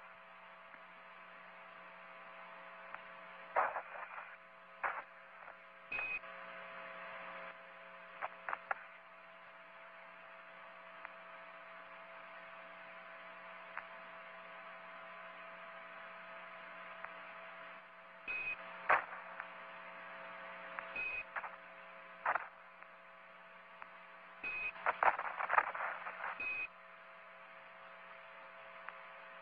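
Radio-transmission noise: a steady hiss and hum with scattered crackles and clicks, and now and then a short high beep. The crackles bunch together near the end.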